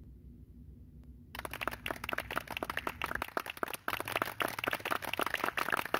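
Applause: many hands clapping, starting suddenly about a second in after a faint low hum and continuing steadily.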